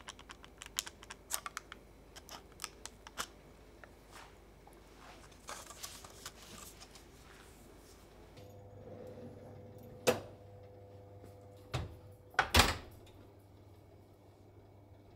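A silicone spatula scrapes and taps as it smooths cake batter in a parchment-lined loaf tin, making a run of small clicks, then a soft rustle. After that comes an oven being loaded: a steady hum, one sharp click and two heavy clunks.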